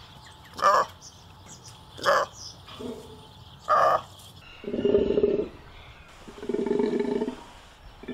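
Golden takin calling: four short calls in the first four seconds, then two longer, lower calls of just under a second each.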